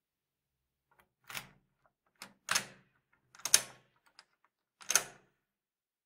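A door lock being worked and the door opened: a string of sharp metallic clicks and clunks from the lock, latch and handle, the loudest about three and a half seconds in.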